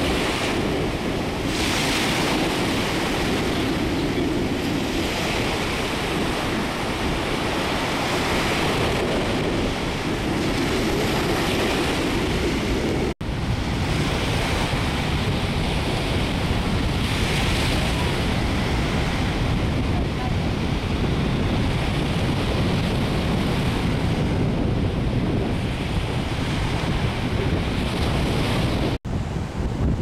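Surf washing onto a sandy beach, mixed with wind buffeting the microphone. The sound cuts out for an instant twice, about 13 seconds in and near the end.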